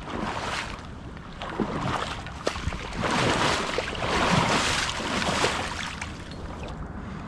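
Dead marsh stems and brush rustling and scraping, with water swishing, as someone pushes through flooded vegetation. It swells loudest in the middle few seconds.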